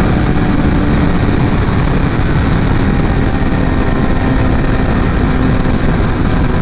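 A carbureted motorcycle's engine running steadily while riding, over a constant rush of wind and road noise. The engine note eases slightly lower about two seconds in and then holds.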